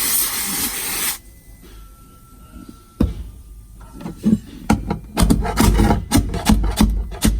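An inverted aerosol duster can spraying its freezing jet with a loud hiss that cuts off about a second in. From about three seconds in, a pry tool scrapes and chips at the frozen, brittle old tar sound-deadening on the car's metal floor, with rapid irregular scraping strokes.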